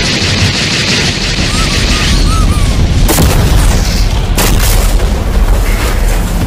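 Sound-effect gunfire from a giant robot's arm cannons, rapid for the first two seconds, followed by two sharp blasts about three and four and a half seconds in, over a heavy low rumble.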